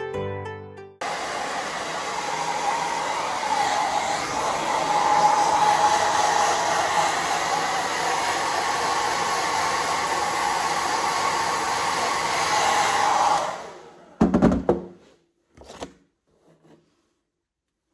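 Hand-held hair dryer starts about a second in and blows steadily for about twelve seconds, then cuts off. A few short knocks and clatters follow.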